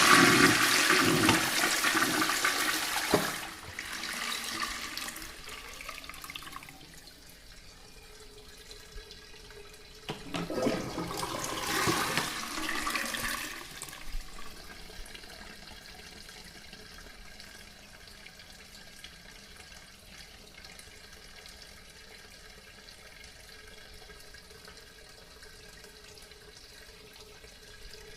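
Toilet flushing: a loud rush of water for about three seconds that fades away, a second surge about ten seconds in, then a quieter steady hiss of water running on as the tank refills.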